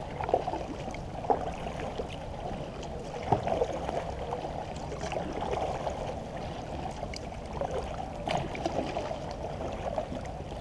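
Water trickling and splashing off a kayak paddle's blades during steady strokes and lapping against the hull of a Bonafide SS127 fishing kayak, with a few sharp clicks.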